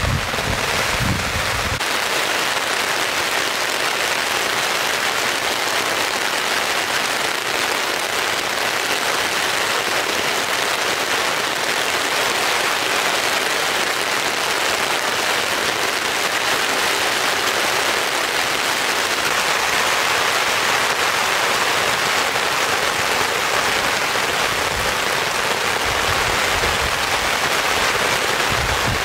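Heavy rain falling steadily, a dense hiss of drops, with low rumbles about a second in and again near the end.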